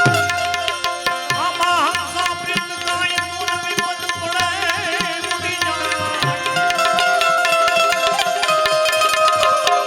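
Instrumental interlude of a devotional bhajan: tabla keeping a steady rhythm under a melody instrument that holds long notes with a few wavering ornaments.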